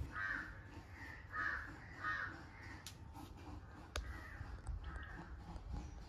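A few faint bird calls, spaced out through the stretch, with a single sharp click about four seconds in.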